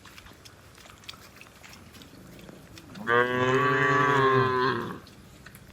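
A cow mooing once: a single long, steady call of about two seconds, starting about three seconds in.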